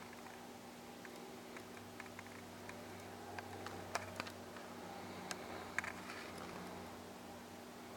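Scattered light clicks and taps of hands working on the ceiling fan's side speed switch, over a steady low hum.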